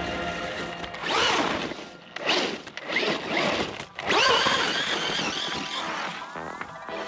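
Traxxas Rustler 4x4 VXL RC truck's brushless motor and drivetrain whining in several short bursts of throttle, the pitch rising and falling with each burst. The longest, loudest burst comes about four seconds in, as the truck passes close.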